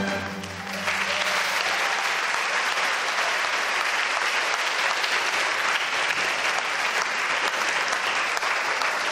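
The last chord of a Chinese orchestra ringing away, then a full hall audience applauding, starting just under a second in and holding steady.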